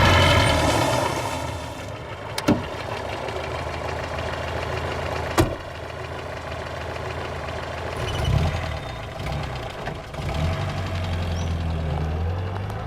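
An engine running steadily, with two sharp clicks, one about two and a half seconds in and another about three seconds later.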